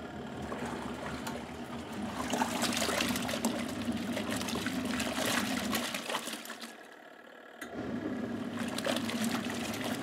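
Best Choice portable twin-tub washing machine agitating a load of t-shirts: a steady motor hum under sloshing, splashing water. About six seconds in the agitation stops for a second or so, then starts again as the impeller alternates between clockwise and counterclockwise rotation.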